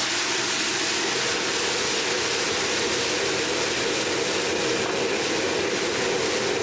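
Hot oil sizzling and bubbling steadily in a wok as a metal ladle stirs through it.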